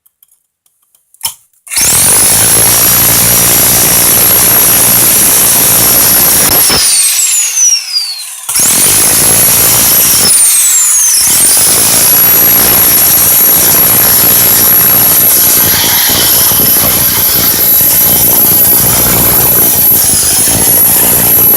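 Bauer 10 amp SDS rotary hammer in hammer-only mode, working into concrete: it starts up loud with a high motor whine over rapid hammering. Twice it winds down with a falling whine and starts up again.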